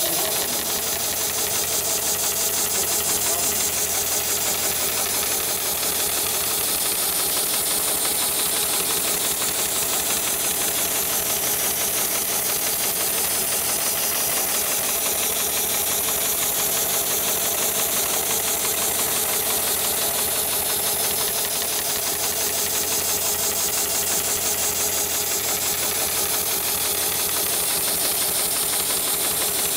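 Heavy-duty automated shoe-sole stitching machine running steadily, stitching at a fast, even rate.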